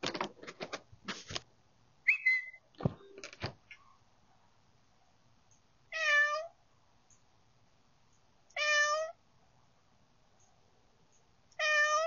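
Domestic cat knocking and pawing at a video doorbell at close range, a quick run of clicks and thumps against the unit in the first few seconds. Then the cat meows three times, short calls a few seconds apart.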